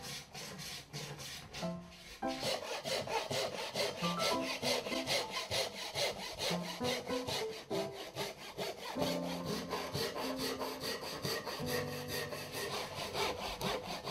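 Japanese hand saw cutting through a block of wood in rapid, even back-and-forth strokes, growing louder about two seconds in, with soft background music underneath.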